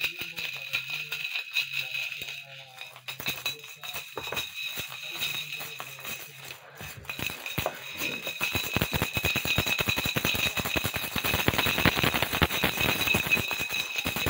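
A steady high jingling rattle that turns into a dense, fast, louder rattling from about eight seconds in.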